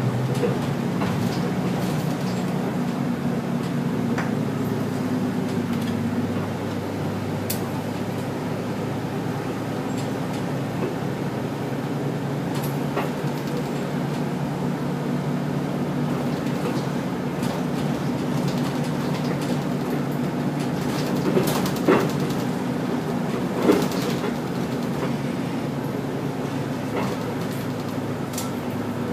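Inside a moving bus: the engine drones steadily along with road noise, its low note shifting slightly a few seconds in. Two sharp knocks or rattles stand out about three-quarters of the way through.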